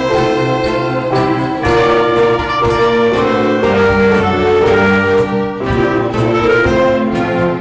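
Instrumental ensemble playing a Christmas medley: sustained melody notes over chords, with light percussion strokes about twice a second.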